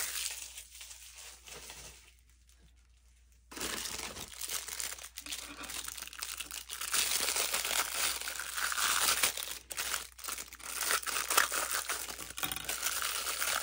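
Clear plastic wrapping crinkling and rustling as a silicone mold is handled and its bag cut open with small scissors. After a short near-quiet pause about two seconds in, the crinkling starts again and keeps going, with a few sharp clicks.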